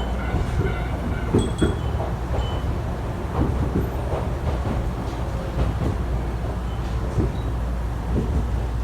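Electric train running: a steady low rumble with irregular knocks from the wheels over the rails.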